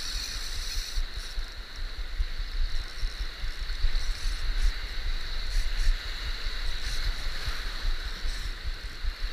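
Ocean surf washing over a shallow coral reef and against rocks: a steady rushing of foaming water with an irregular low rumble.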